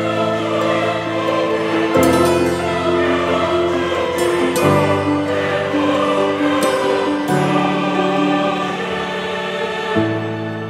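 Background music: slow, sustained chords that change about every two to three seconds.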